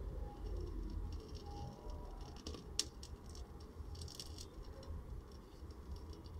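Faint rattling and scratching handling noises over a low rumble, with one sharp click about three seconds in.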